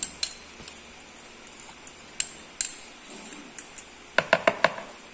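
A metal fork clinking against bowls while egg yolks are scraped out into bread dough: a few separate clicks, then a quick run of about five taps about four seconds in.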